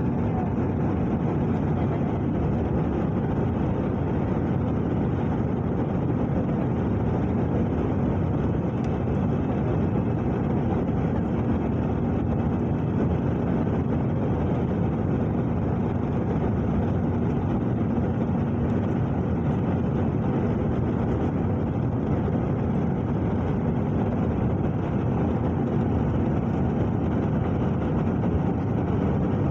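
Steady cabin noise of an airliner in flight: the jet engines and the rushing air blend into an even, unchanging noise with a faint low hum.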